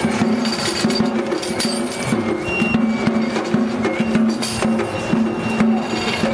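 Japanese festival music (matsuri-bayashi): drums beaten in a steady rhythm, with short high held notes from a flute over them.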